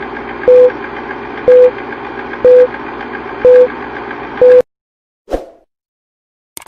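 Old-film countdown leader sound effect: five short beeps a second apart over a steady, projector-like whirr that cuts off after the last beep. A low thump follows, then a brief click near the end.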